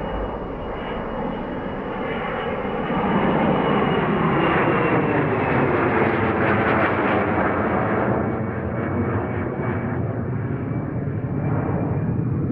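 Model jet's B300F gas-turbine engine making a flypast: a loud roar with a thin high whine that swells to a peak mid-way and eases off as it goes by, the whine dropping slightly in pitch.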